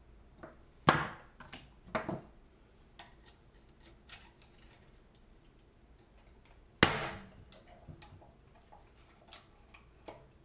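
Hammer striking a screwdriver held against the plastic governor ring in a Honda-clone engine's crankcase, to break the ring off its shaft: sharp metallic strikes that ring on briefly, about one and two seconds in and loudest about seven seconds in, with light tool clicks between.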